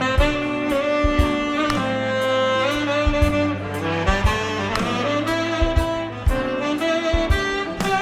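Saxophone playing a melody of held notes over a backing track with a steady drum beat.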